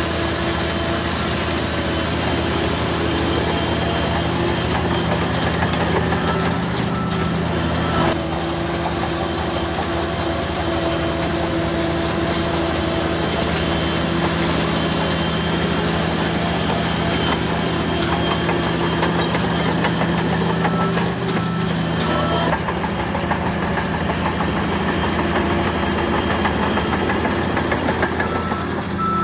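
Heavy earthmoving machine's diesel engine running steadily, with one sharp knock about eight seconds in.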